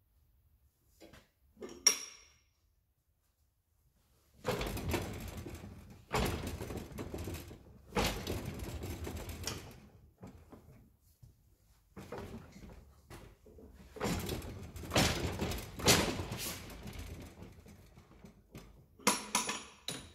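Steel tooling and parts being handled on a flypress bed: a short metallic clink about two seconds in, then repeated clattering and scraping in bursts of one to two seconds.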